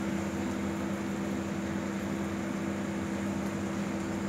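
Steady electric hum of a running motor, two even tones that hold unchanged, with a light hiss over them.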